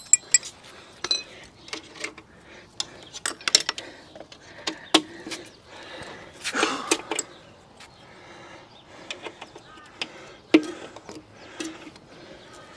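Scattered, irregular metallic clinks and knocks of hand tools and bolts while a motorcycle's front mudguard is being bolted on.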